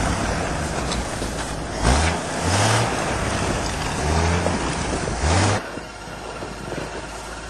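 Engine of a tracked Nodwell snow carrier running under load, its note surging up and down several times as it is revved. About five and a half seconds in, the sound drops to a lower, steadier level.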